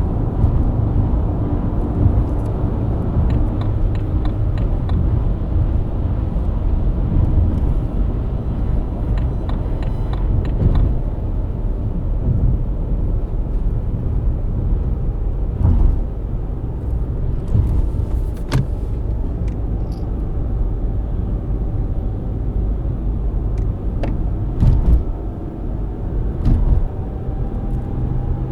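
BMW E90 323i's inline-six engine running at cruise with steady road rumble, broken by a few short, sharp knocks; near the end the engine's pitch starts rising as the car accelerates.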